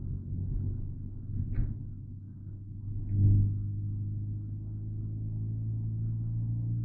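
Volkswagen Jetta 2.0 TSI's turbocharged four-cylinder engine heard from inside the car. About three seconds in it comes on load and gets louder, then holds a steady drone whose pitch rises slowly as the car accelerates.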